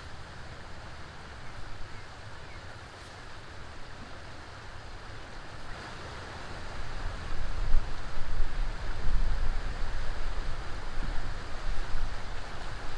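Steady rush of water pouring over a spillway. From about seven seconds in, a stronger, uneven low rumble comes in on top of it.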